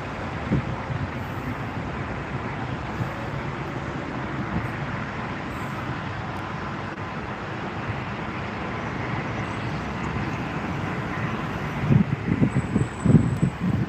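Steady, distant roar of a business jet's engines as it climbs away after takeoff. Wind buffets the microphone in gusts near the end.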